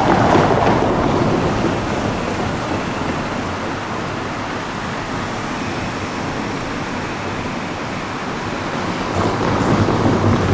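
Nishitetsu electric commuter train running past, a steady rushing noise of wheels and running gear that swells at the start and again near the end.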